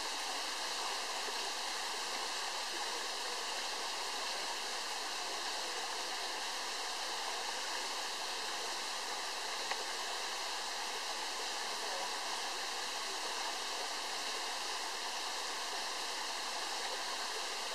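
Waterfall: a narrow cascade of water spilling down a rock cliff onto boulders, heard as a steady, even rush with no low rumble.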